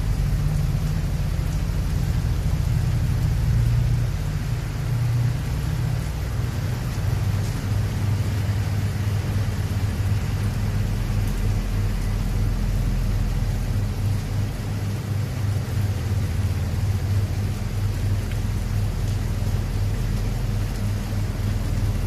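Heavy rain driven by strong wind: a steady hiss of rain over a continuous low rumble.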